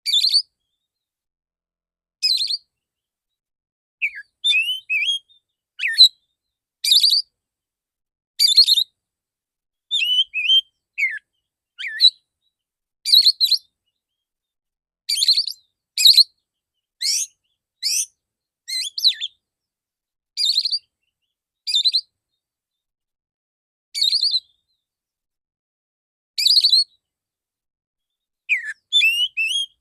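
Male Oriental magpie-robin singing in short, sharp bursts of high whistled and rasping notes, one burst every second or two with dead silence between: the staccato 'shooting' song that keepers call tembakan.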